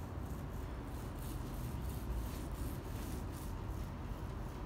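Small paint roller rolling primer onto a fiberglass boat hull, a faint swish with each back-and-forth stroke, about three a second, over a steady low rumble.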